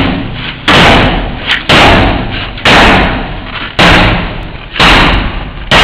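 Sledgehammer striking a door again and again, about one heavy blow a second, each ringing out and dying away before the next; the door does not give.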